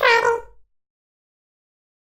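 A high-pitched, wavering vocal call that stops about half a second in, followed by dead silence.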